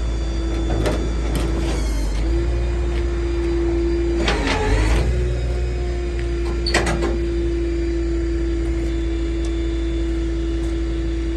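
Rollback tow truck's engine running at idle: a steady low hum with a constant tone. A few knocks and clanks break in as the toolbox is moved, the loudest about four and a half seconds in and a sharper one near seven seconds.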